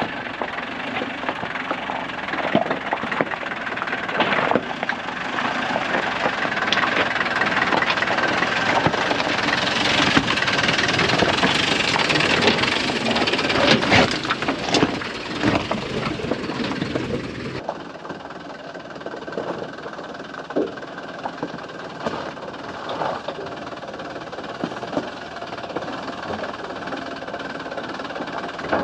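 Land Rover driving over a rough track: engine running under the noise of the body and suspension rattling, with frequent sharp knocks and clatters. The sound drops abruptly to a quieter, thinner running noise about two-thirds of the way through.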